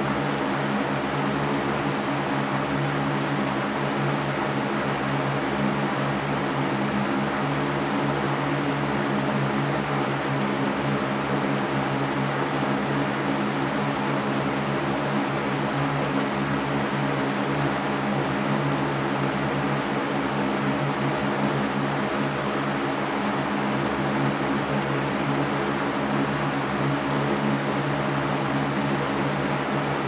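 Large Mastercraft metal fan running at a steady speed: an even rush of air with a low, steady hum underneath.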